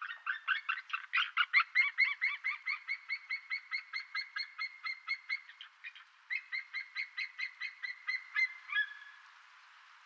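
White-tailed eagle calling: a fast series of short, high-pitched notes, about six a second, broken once by a brief pause about six seconds in and ending in a drawn-out note near nine seconds.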